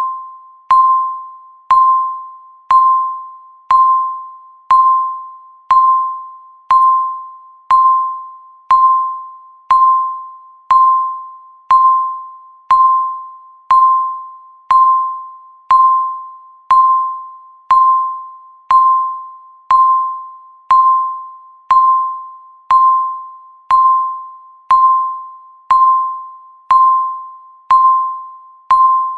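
Countdown timer's electronic tick sound: a short, clear ping with a quick fading ring, repeating evenly once a second to mark each second counted down.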